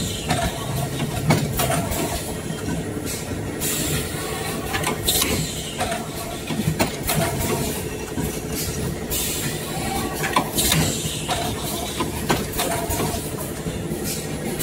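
Blister card packing machine running: a steady machine hum with repeated sharp clanks and several short bursts of air hiss from its pneumatic cylinders.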